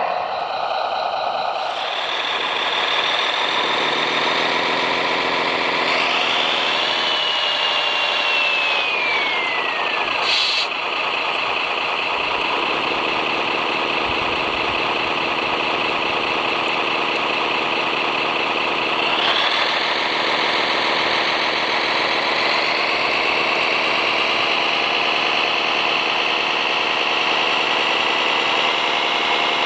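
Radio-controlled heavy construction vehicle running continuously, its engine-like drone mixed with a motor whine. The whine rises about six seconds in and falls away over the next few seconds, then steps up near twenty seconds and climbs slowly.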